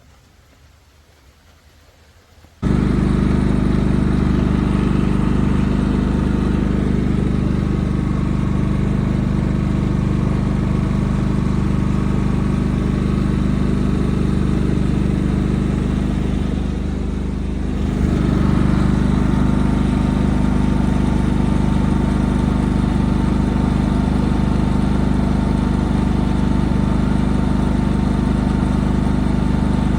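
Westinghouse dual fuel inverter generator running steadily under its engine hum. It comes in suddenly about two and a half seconds in after a quieter opening, and about two-thirds of the way through it dips briefly before settling back slightly louder, as the engine speed shifts.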